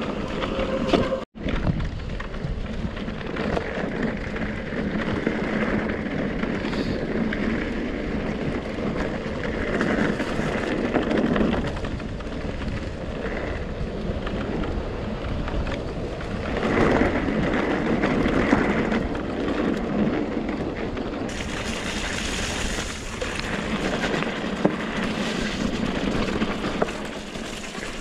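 Mountain bike descending a rough bridleway, with steady wind buffeting on the action camera's microphone and the rumble of the tyres over stones and mud. The sound drops out for an instant about a second in.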